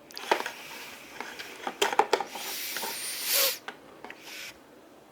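Plastic action figure being handled: a few sharp clicks, then a stretch of rubbing and scraping about halfway through.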